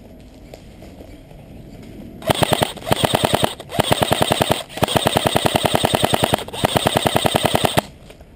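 Airsoft gun firing on full auto: rapid, evenly spaced shots in about five bursts with short breaks, starting a little over two seconds in and stopping shortly before the end.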